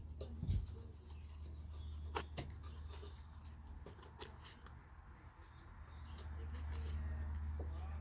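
Scattered light clicks and taps from handling and fitting a plastic cap over a cardboard-covered hole patch, with a thump about half a second in, over a steady low rumble.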